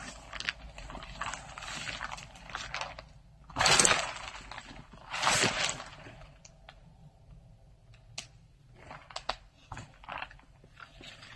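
Irregular crunching footsteps on snow, with two louder crunches about four and five and a half seconds in and only scattered small crunches after that.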